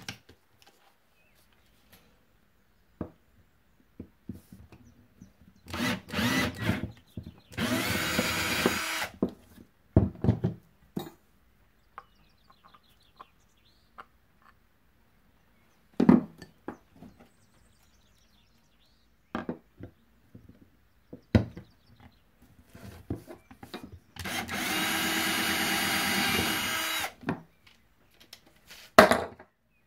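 Cordless drill with a large bit boring through cured epoxy resin. It runs in two short bursts early on, then in one steadier run of about three seconds near the end, with knocks and clicks of handling in between.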